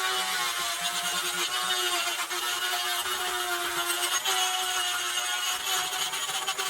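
A small electric motor running steadily, with a whine that dips slightly now and then over a constant hiss.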